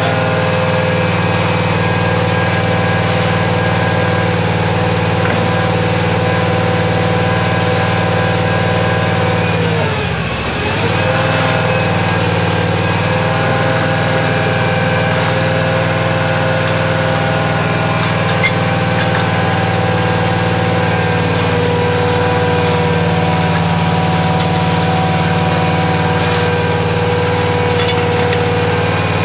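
Trailer-mounted well drilling rig's engine running steadily, with a steady mix of tones; about ten seconds in its pitch sags briefly and then comes back up.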